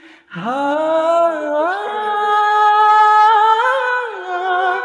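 A man singing a love song into a microphone: his voice slides up at the start, holds one long high note, and wavers near the end before stepping down.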